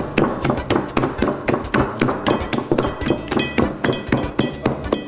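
A hand slapping and beating stiff cuca (yeast coffee-cake) dough in a glass bowl: rhythmic wet slaps about three or four a second, with the glass bowl clinking now and then. The dough is being beaten hard to make it light.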